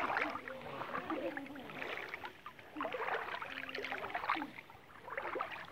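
Water splashing and sloshing close by, an uneven run of small splashes as someone moves through shallow river water.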